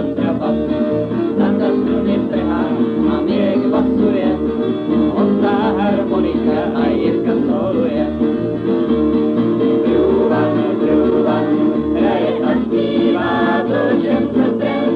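Czech tramp-style folk song: guitars strummed over plucked bass notes on a steady beat, with voices singing.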